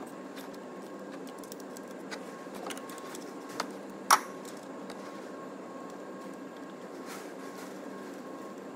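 Scattered light metallic clicks and clinks of hand tools and engine parts being handled, with one sharper clink about four seconds in, over a steady background hum.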